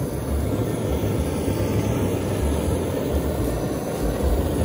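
A yakiniku grill running under a slice of kalbi on its wire mesh: a steady low roar with a deep rumble beneath it.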